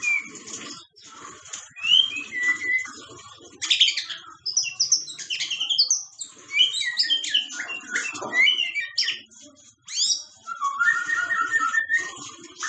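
White-rumped shama (murai batu) singing a varied song of whistled glides and quick chattering notes, with a run of evenly repeated notes near the end.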